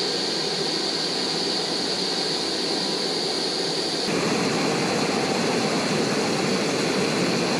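Optimus Crux canister gas stove burning at full flame: a steady hiss of gas rushing through the burner head. Its tone shifts slightly about four seconds in.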